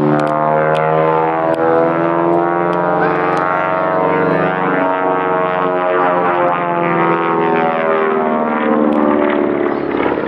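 Vintage twin-engine propeller airplane running at power overhead as it climbs and then dives, its engine drone steady in loudness but its pitch sweeping and wavering as it moves.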